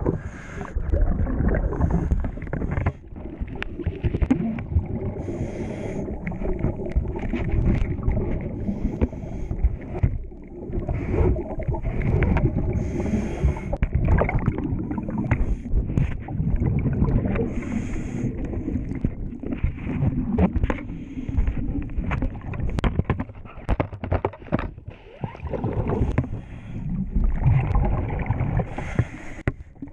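Muffled underwater sound from a submerged camera at a yacht's hull: churning water and air bubbles, with many small knocks and clicks and a short hissing rush of bubbles every few seconds.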